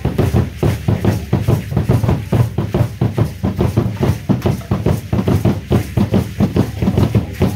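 Drums accompanying Aztec dance, beating a fast, steady rhythm.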